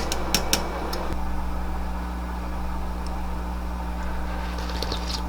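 Steady low hum of a running kitchen appliance such as a stove-top exhaust fan, with a few light clicks of utensils against a pot in the first second.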